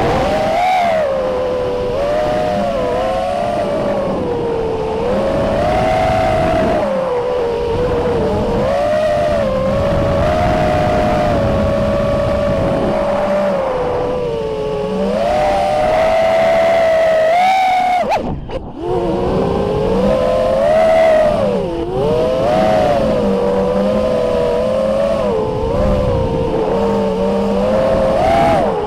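Eachine Wizard X220S racing quadcopter's four 2206 2300KV brushless motors and propellers whining in flight, as heard from the on-board camera. Several close tones rise and fall together with the throttle over a rush of wind. About two-thirds through, the whine drops away briefly as the throttle is cut, then climbs again.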